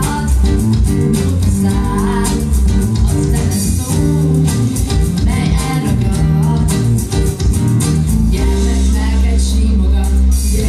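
Small acoustic band playing live: strummed acoustic guitars and a violin, with girls' voices singing.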